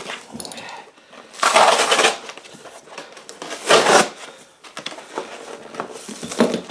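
Foam packing being torn and crushed out of a cardboard box by hand, with two loud crunching rips, about a second and a half and nearly four seconds in, and quieter rustling between.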